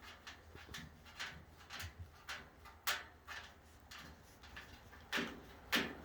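A cockatoo making short, scattered calls, about seven brief sounds spread over six seconds, the loudest two close together near the end.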